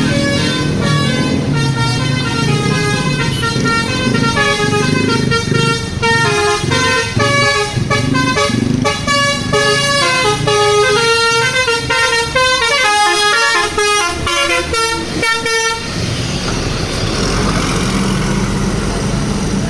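A bus's basuri telolet musical air horn playing a fast tune of short stepped notes for about sixteen seconds, then cutting off suddenly. A low rumble of the idling bus continues underneath and after.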